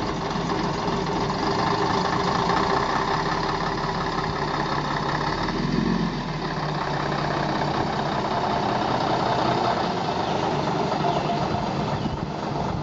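Diesel engine of a Metro-Scania single-deck bus running steadily, heard from behind as the bus moves slowly away, with a brief low surge about six seconds in.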